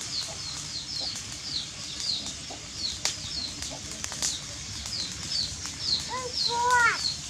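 Background birdsong: a small bird's short, high, falling chirps repeat about twice a second. Near the end comes a louder drawn-out call that rises and then falls.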